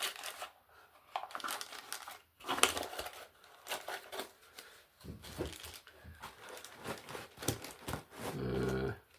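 Plastic packaging being handled and unwrapped: irregular crinkling and rustling with a few tearing sounds, then a short low hum near the end.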